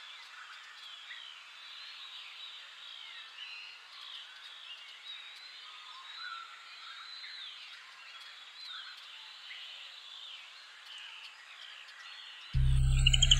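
Faint outdoor ambience: a steady hiss with many small chirps and whistles from birds or frogs, with nothing from the elephants themselves. Near the end, loud music cuts in suddenly.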